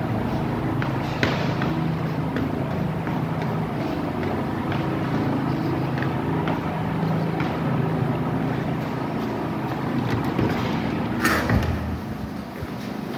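Steady low mechanical hum, with a few faint clicks and one sharp knock about eleven seconds in.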